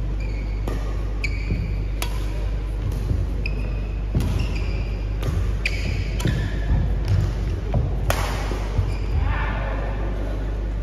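A badminton doubles rally: rackets strike the shuttlecock about a dozen times, each hit a sharp ping, at roughly one hit every half-second to second. The hits stop before the end, followed by a noisier stretch.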